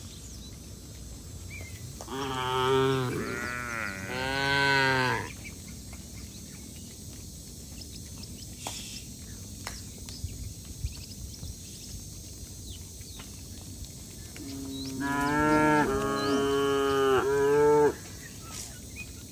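Zebu-type cattle mooing: a cluster of long, deep moos from about two to five seconds in, then a quieter stretch, then another cluster of moos from about fifteen to eighteen seconds.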